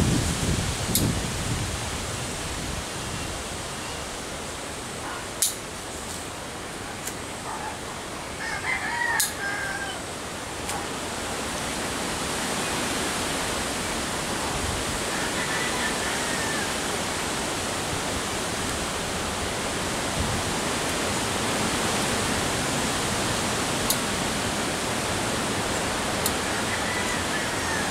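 A rooster crows about eight seconds in, with two fainter crows later, over a steady hiss. A few sharp clicks are scattered through.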